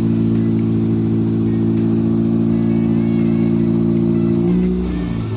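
Mitsubishi Lancer's four-cylinder engine idling fast and steady, cold and with the air conditioning switched on, with no belt squeak from the freshly aligned alternator. The idle settles lower near the end.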